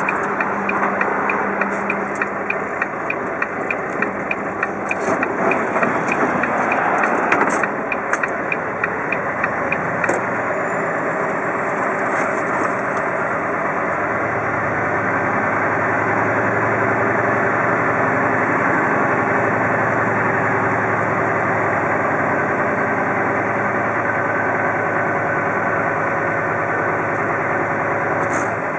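Semi truck's diesel engine running at low speed, heard from inside the cab, with a regular ticking through the first third. From about halfway a steady low hum settles in as the truck rolls slowly.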